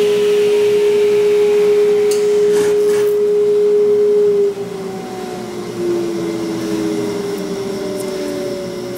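Table saw motor running with a steady hum, switched off about four and a half seconds in and winding down with a slowly falling whine.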